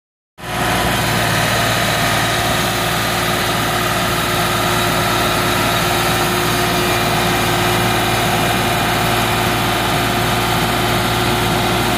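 New Holland LS160 skid steer loader's engine idling steadily.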